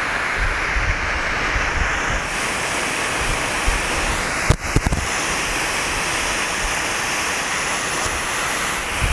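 Enola Gaye EG18X charcoal smoke grenade burning, a steady hiss of smoke pouring out of its vent. Wind rumbles on the microphone, and a couple of brief knocks come about four and a half seconds in.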